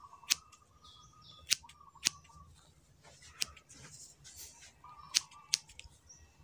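Hair-cutting scissors snipping through hair: about six sharp snips at uneven intervals, with a faint rustle of hair between them.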